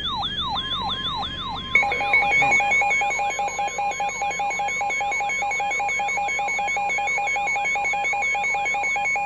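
Layered electronic warning sirens: a fast, repeating falling siren sweep and a steady high tone, joined about two seconds in by a louder, rapidly warbling two-pitch alarm that holds steady.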